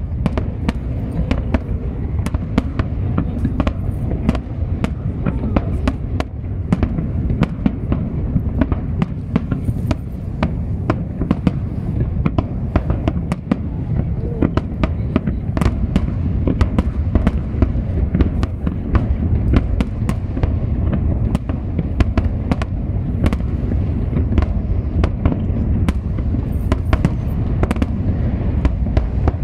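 Fireworks display: a dense low rumble of bursting shells with many sharp cracks and crackles packed close together, without a pause.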